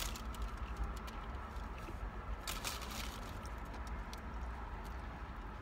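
A person eating a cheeseburger inside a car: a few short rustles and crackles as the burger is handled and bitten, the loudest about two and a half seconds in, over a steady low hum.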